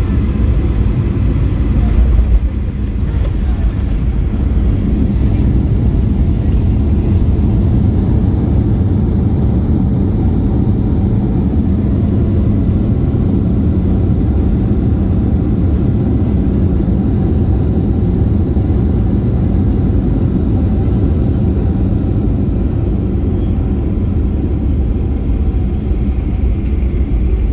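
Steady low rumble inside the cabin of a Boeing 737-800 rolling out and taxiing after landing: its CFM56 engines running at low power and the wheels rolling over the runway, with a brief swell about two seconds in.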